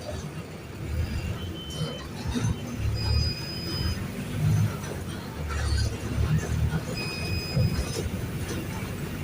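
Mercedes-Benz OF-1519 BlueTec 5 bus's diesel engine heard on board, its note swelling and easing off every second or two as the bus drives. Short high squeals and rattles come and go over it.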